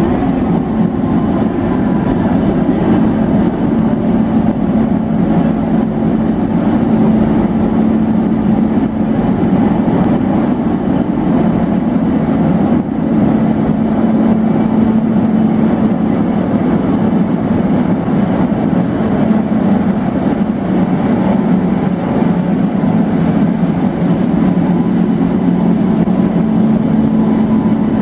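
Locomotive-hauled passenger train pulling slowly into the platform, the locomotive running loud and steady close by with a continuous low hum.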